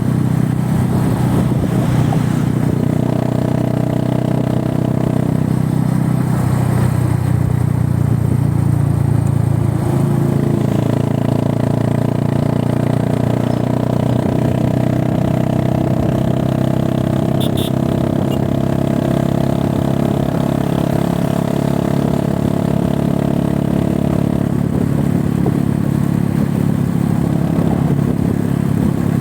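Motorcycle engine running steadily at an even speed, its pitch shifting only slightly, with a brief tick about two-thirds of the way through.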